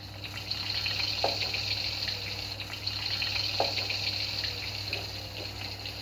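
Rain falling steadily: an even hiss.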